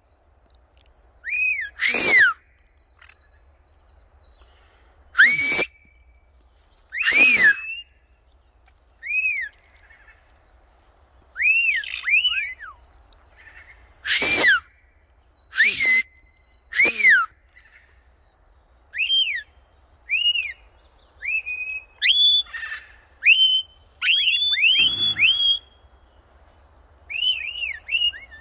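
Parrots calling: repeated short whistles that rise and fall in pitch, broken by about six loud, harsh shrieks in the first two-thirds. Near the end the whistles come in quick runs.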